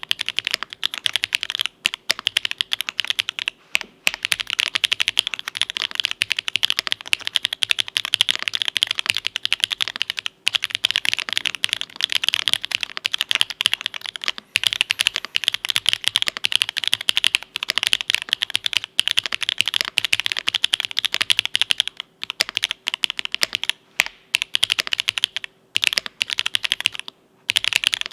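Fast, continuous typing on a mechanical keyboard with lubed Owlab Tungsten linear switches (nylon housings, POM stems) on an aluminium plate under GMK keycaps: a dense run of keystrokes broken by a few short pauses.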